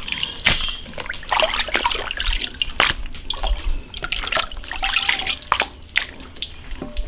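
Water splashing and dripping in irregular small splashes as raw beef ribs are handled in their soaking water, which has drawn out their blood.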